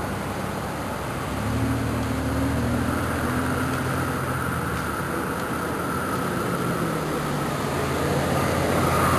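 A motor vehicle's engine running with a steady low hum over a constant hiss, a little louder from about a second and a half in.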